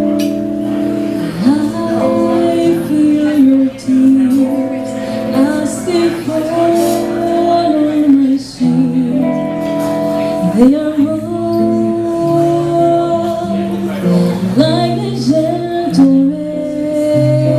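A woman singing a slow jazz ballad with sliding, held notes over guitar accompaniment.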